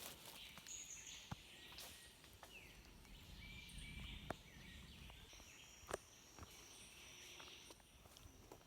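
Faint rural bush ambience: a steady high hum of insects with short bird chirps, and a few sharp clicks scattered through it.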